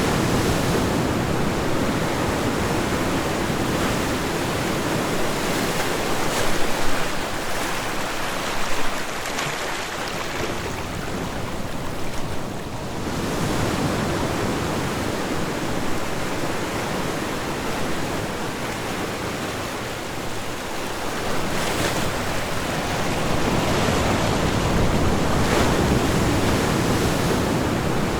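Ocean surf washing on a shore, a continuous rush of waves that swells and eases slowly, with some wind on the microphone.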